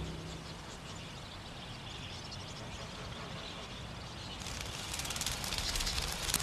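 Faint outdoor ambience, then from about four seconds in a fast crackling splash that grows louder: a young budgerigar struggling and flapping in water.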